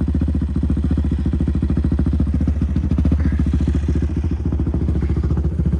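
ATV engine idling with a steady, even low pulse.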